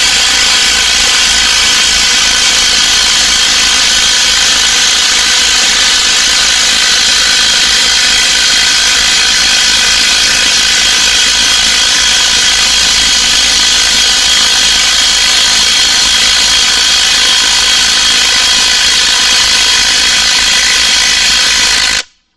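Two DeWALT brushless cordless impact wrenches, a 12V Xtreme 1/2-inch and a 20V XR 3/8-inch, both on speed 3, hammering steadily as they drive into a log. The sound is loud and even throughout and cuts off suddenly near the end.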